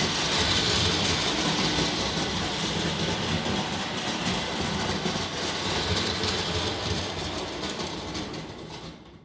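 Clockwork tinplate toy train, a 1960s Robilt locomotive with tender and two carriages, running around a circle of tinplate track: the wound-up spring motor whirring and the wheels rattling and clicking over the track. The sound fades away over the last second or so.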